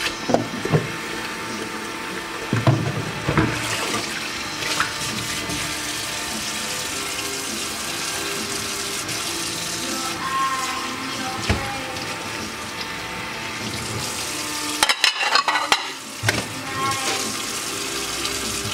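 Water running steadily from a tap into a sink, with a few knocks, and a quick run of sharp clatters about fifteen seconds in.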